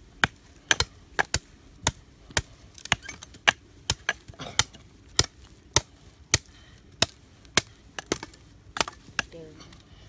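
Broad-bladed knife chopping at a green forked wooden stick, trimming a slingshot frame: a steady run of sharp chops, a little under two a second.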